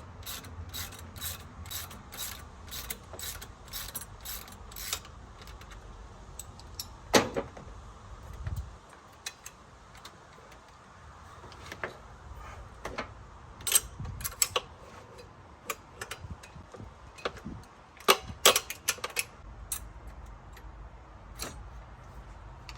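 Ratchet wrench clicking in quick, even strokes for the first five seconds as bolts on the engine's front end are worked loose, followed by scattered ratchet clicks and a few sharp metal knocks of tools against the engine.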